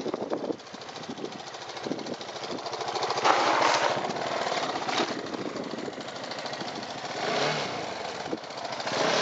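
Motorcycle engine running through a low-speed fall caused by over-braking the front wheel: a loud noisy skid on the loose surface about three seconds in, then a sharp knock about five seconds in as the bike goes down.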